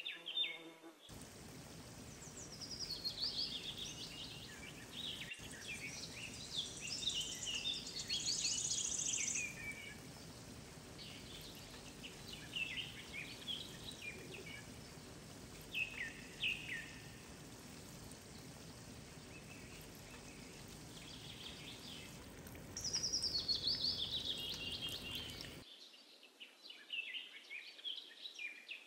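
Kachori deep-frying in hot oil in a pan: a steady sizzle with bursts of crackling and popping that come and go.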